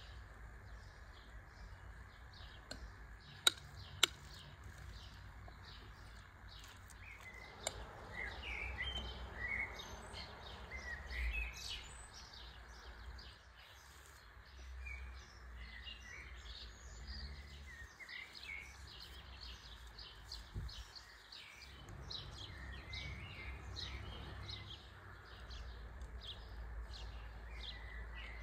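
Small birds chirping and twittering over a low steady rumble, with two sharp clicks about three and a half and four seconds in.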